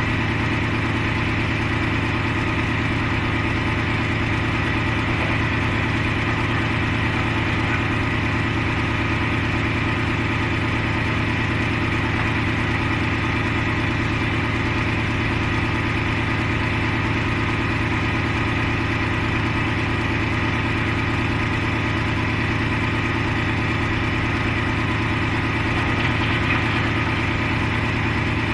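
Diesel engine idling steadily at an even, unchanging pitch.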